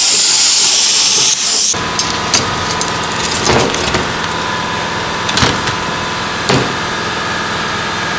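HANDTEK Cut-40 plasma cutter's arc hissing loudly as it cuts through the steel shell of a catalytic converter, cutting off about a second and a half in. A steady machine hum follows, with a few metal knocks as the cut converter halves are handled on the aluminium checker-plate table.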